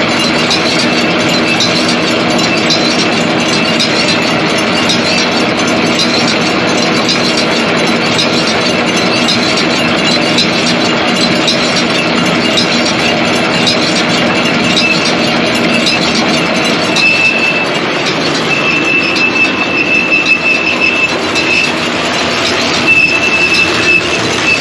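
John Deere 459 round baler running under tractor power with a steady mechanical hum. From about two-thirds of the way through, a high, steady squeal cuts in and out. The owner traces the squeal to a caked-up roller that he means to replace.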